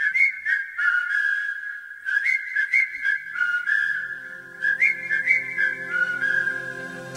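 A whistled melody, one clear line stepping up and down between notes with little slides into them, over soft backing music.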